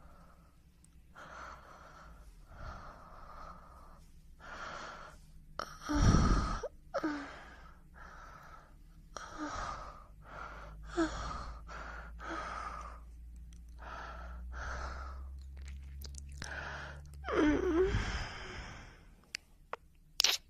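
A person's heavy breathing: short breathy gasps and exhalations, one or two a second, with two louder ones about six seconds in and near the end.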